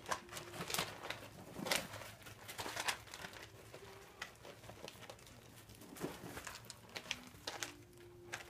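Barbet puppies' paws crinkling paper sheets and scuffing pellets in a potty box: irregular light crackles and clicks.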